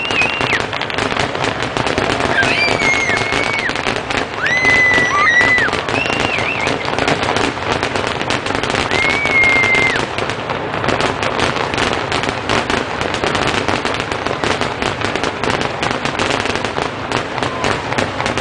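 A fireworks display going off in a rapid, unbroken barrage of bangs and crackling. Several shrill whistles sound over it in the first half.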